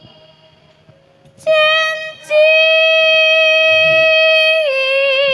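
A female sinden singer holds a long, high sung note that starts after a short quiet opening, breaks off briefly and resumes. Near the end it steps down slightly in pitch and takes on a wavering vibrato.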